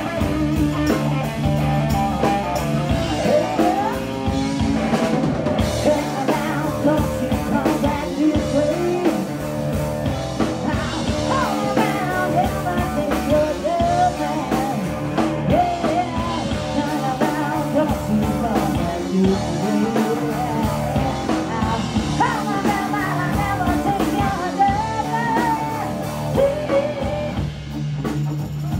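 Live rock band playing: electric guitar, electric bass and a drum kit, with a woman singing.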